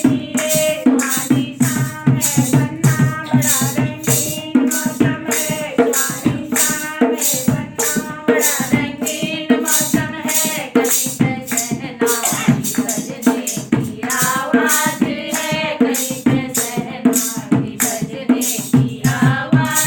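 Hindi folk wedding song (banna-banni geet): voices singing over a steady shaken-rattle percussion beat of about four strokes a second.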